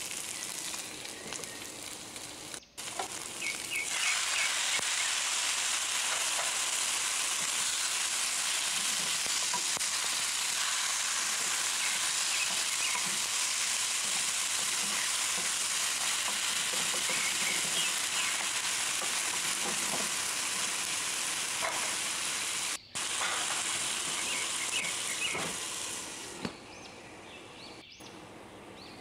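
Beef chunks, onions and chopped tomatoes sizzling steadily in a hot wok, with small crackles and pops as a spatula stirs them. Near the end the sizzle drops quieter with a lid on the pan.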